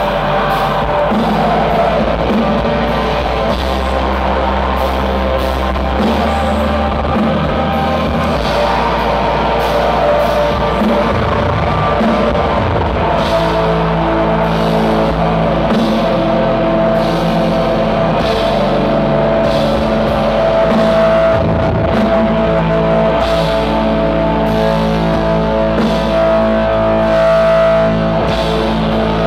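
Black metal band playing live: distorted electric guitars and a drum kit in a dense, unbroken wall of sound, with long held notes over it.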